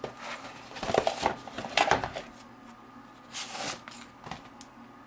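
Hand handling on a hard stone slab: two bursts of knocks and clatter as a plastic battery bank is set down, then a sheet of paper rustling briefly, with a small knock after it.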